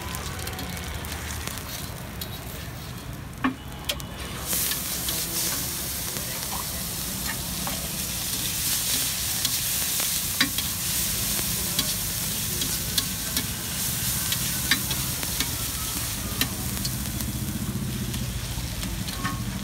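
Egg and masala sizzling on a large flat griddle (tawa), with a steel spatula scraping and clicking against the hot surface. The sizzle grows louder about four seconds in, as the masala and egg are worked together and give off steam.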